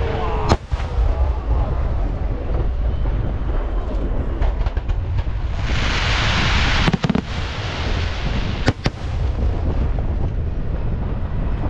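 Fireworks display: aerial shells bursting with sharp bangs, one about half a second in, one about seven seconds in and one near nine seconds, over a steady low rumble. A loud hiss of sparks rises for about a second just before the second bang.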